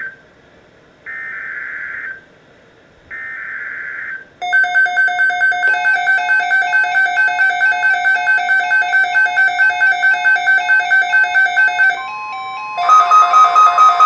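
The last two buzzy one-second data bursts of an Emergency Alert System SAME header from a NOAA Weather Radio broadcast, a second apart. Loud electronic alert beeping follows, about three to four pulses a second. Near the end it gives way for under a second to a steady tone, then resumes at a slightly different pitch.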